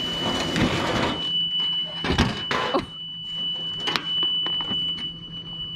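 Sheet metal being worked by hand: a rushing scrape for about the first second, then a few sharp knocks and clanks, over a thin steady high-pitched whine.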